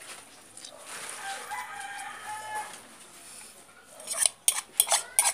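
A rooster crowing once, a single long call of about two seconds. Near the end, a spoon clinks and scrapes against the bowl in a quick run of sharp clicks.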